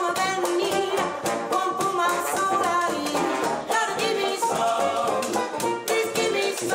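New Orleans-style jazz band playing with a steady beat: a woman singing over trumpet, trombone, sousaphone, banjo and drums.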